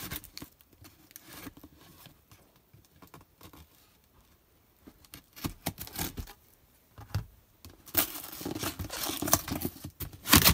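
A taped cardboard box being opened: scattered scrapes and clicks as the tape seam is cut, then, from about eight seconds in, denser tearing and crinkling of cardboard and packing as the flaps are pulled open, loudest near the end.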